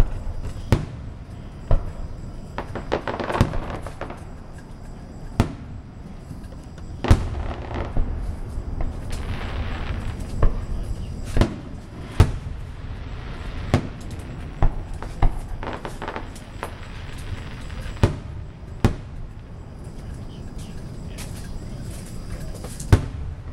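Aerial fireworks shells bursting overhead with about a dozen sharp booms at irregular intervals, sometimes two close together. Between some of the booms there are stretches of rushing, crackling noise.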